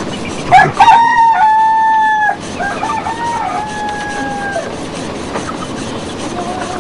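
A rooster crowing: a loud, long crow about half a second in, followed straight away by a second, fainter crow.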